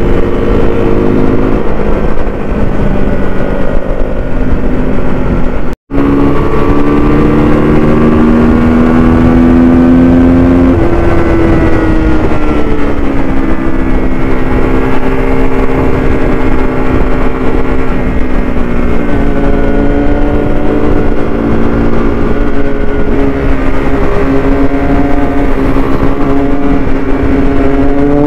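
Sport motorcycle engine running at cruising speed under a steady rush of wind noise, its pitch drifting up and down with the throttle and easing down about eleven seconds in. The sound cuts out for a split second about six seconds in.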